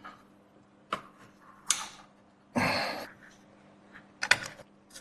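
Thin metal outer shell of a helium-sealed hard drive being pried off with a tool: a sharp click, a short scrape, a louder rasp about halfway through, and a few quick clicks near the end.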